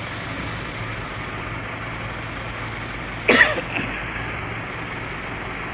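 A person coughs once, sharply, about three seconds in, with a smaller follow-up just after, over a steady background hum.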